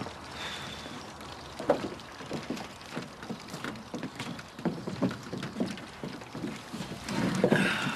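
Irregular footsteps and light knocks on a wooden deck as people walk over and wooden garden chairs are moved and sat in, with louder shuffling near the end.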